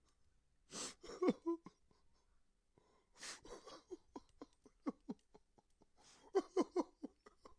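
A person crying: sharp gasping inhales about a second in and again about three seconds in, each followed by short sobbing cries that fall in pitch, with a run of quick sobs between them and a cluster of sobs near the end.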